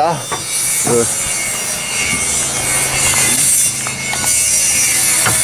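Power saw cutting wood: a steady cutting noise with a low motor hum underneath.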